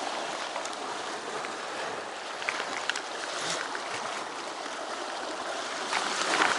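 Sea swell washing and splashing against the shore rocks in a steady surge that swells a little near the end, with a few faint clicks over it.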